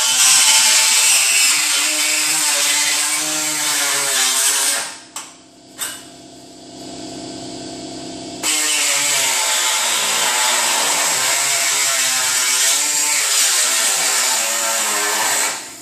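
A power tool cutting through a car's sheet-metal radiator support, its motor pitch wavering under load. It drops away about five seconds in, leaving a quieter steady hum, and starts cutting again about three seconds later, stopping briefly near the end.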